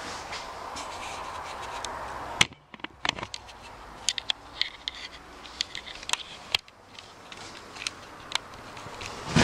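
Handling noise of a camera being picked up and carried: a steady hiss cuts off with a sharp click about two and a half seconds in, followed by scattered light clicks and taps.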